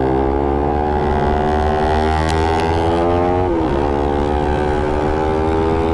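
Suzuki Satria FU motorcycle's single-cylinder engine running hard under way, its note holding steady apart from one brief dip in pitch a little past halfway.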